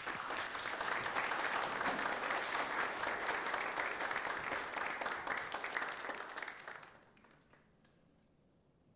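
A roomful of people applauding, dying away about seven seconds in.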